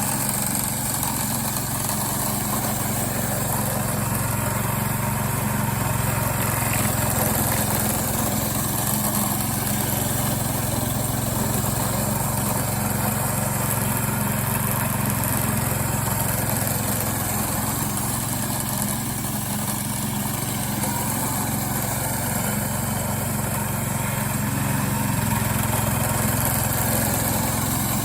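Homemade four-wheel-drive radio-controlled lawn mower's engine running steadily at an even pitch.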